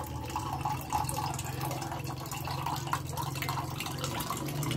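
Coconut water trickling in a thin stream from a hole in a sprouting coconut into a ceramic mug.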